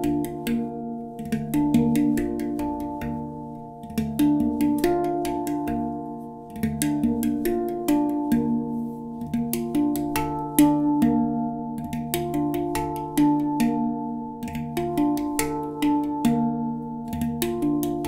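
A steel handpan (hang drum) played with the fingers: a continuous rhythmic pattern of struck notes that ring on and overlap. Many of the strokes come in quick pairs and clusters, the grace-note 'eshareh' strokes of the lesson.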